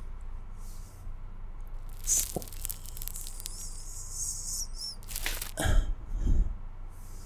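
Close-miked ASMR sounds from hands wearing long stiletto fake nails moving in front of the microphone: a crackly rustle about two seconds in, then a high wavering squeak, then a few more close rustling bursts about five seconds in.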